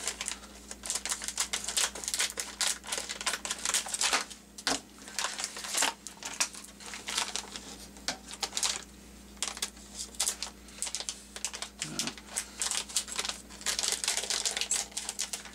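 Silvery anti-static plastic bags being handled, crinkled and cut open with scissors, a dense run of irregular crackles and snips.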